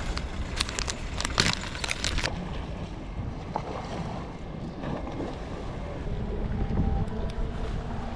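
Strong wind buffeting the microphone over sea waves washing in, with a cluster of sharp clicks and rustles in the first two seconds.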